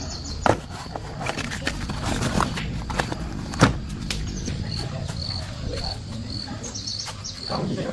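A cricket chirping in short, even pulses about twice a second from midway on, over scattered clicks and knocks, two of them sharper than the rest.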